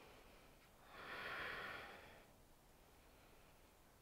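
One faint, drawn-out breath by a person holding a yoga pose, starting about a second in and lasting just over a second.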